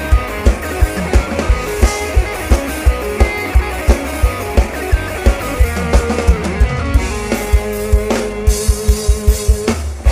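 Live luk thung band playing an upbeat instrumental passage, with a kick-drum beat about three times a second. A faster run of drum hits comes near the end.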